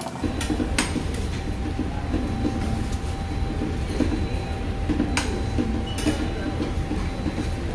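Steady low rumble of a moving vehicle, with a few sharp clicks.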